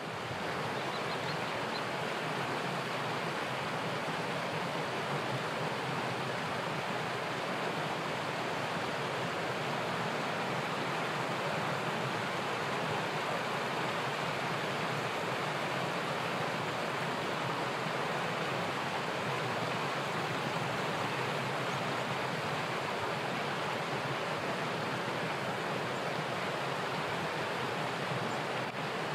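A small hill stream running steadily: an even, unbroken rush of water.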